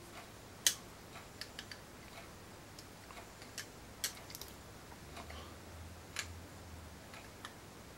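Scattered faint clicks and ticks of a small screwdriver working the screws of a revolver's brass trigger guard, the screws being given a final round of tightening. One click a little under a second in is louder than the rest.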